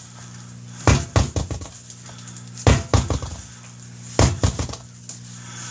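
A newly mounted tubeless motorcycle front tire on its wheel being bounced on the floor three times, each drop a hard thump followed by a few smaller rebounds. The wheel is turned between drops to settle the freshly seated beads.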